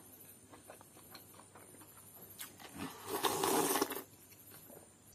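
A man slurping broth straight from the rim of a bowl: one loud slurp lasting about a second, near the end, after a few faint small clicks.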